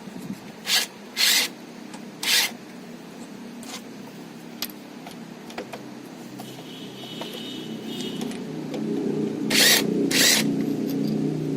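Short bursts of a power tool, most likely an impact gun working on bolts: three in the first two and a half seconds and two more near the end. Under them runs a low machine hum that grows louder from about the middle.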